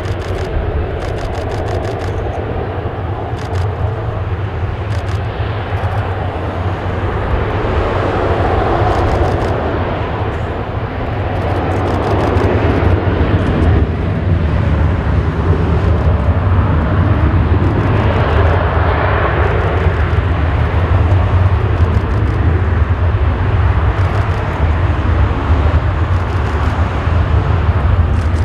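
Airbus A380's Rolls-Royce Trent 900 turbofans running at taxi power: a steady low jet rumble with a broad rushing noise. It grows louder about twelve seconds in as the airliner swings round toward the listener.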